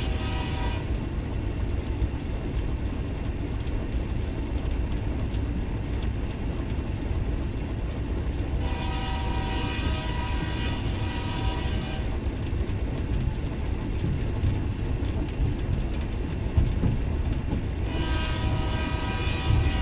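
Diesel locomotive running with a steady low rumble, its horn sounding in long blasts: one ends just after the start, one lasts about three seconds near the middle, and another begins near the end.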